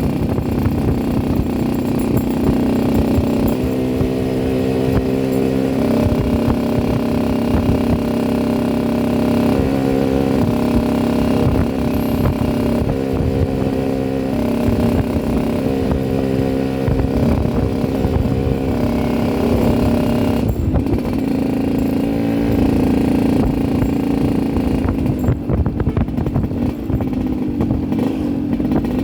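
Yamaha RX-King two-stroke single-cylinder motorcycle engine running with its raspy 'ngorok' note, the pitch shifting up and down every few seconds.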